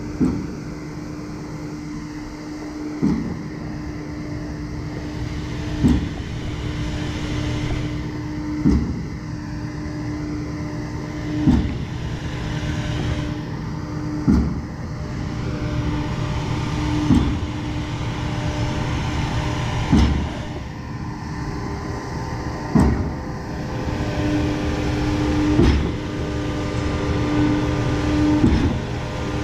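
Concrete pump running with its engine going steadily and a clunk about every three seconds as it changes stroke, pumping slowly at a low volume setting.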